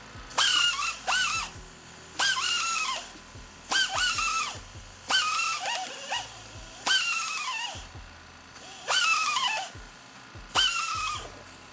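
Tin snips cutting galvanized welded wire fencing, about eight cuts in a row. Each cut is a sharp snip followed by a brief metallic squeal that falls in pitch.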